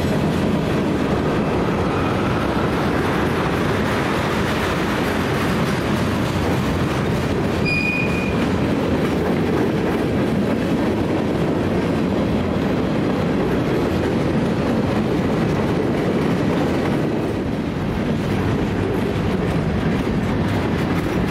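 Freight cars of a passing CSX mixed freight train rolling by at close range, a steady noise of steel wheels on rail. About eight seconds in there is one brief high-pitched squeal.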